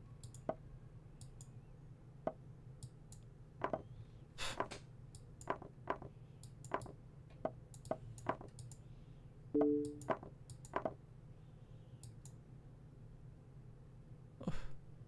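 Computer mouse clicking irregularly, one or two clicks a second, as moves are made in a fast online chess game. A short two-note electronic tone sounds about ten seconds in, and a steady low hum runs underneath.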